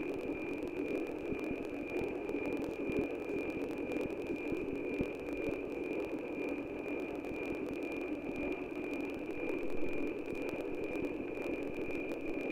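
NOAA-18 weather satellite's APT image signal on 137.9 MHz, heard through the radio receiver as a steady high tone over a band of static hiss.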